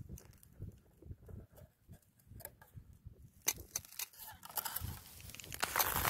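Faint handling noises from a pike tip-up at an ice hole: scattered soft knocks and a few sharp clicks as its spool and line are worked by hand. A soft hiss builds near the end.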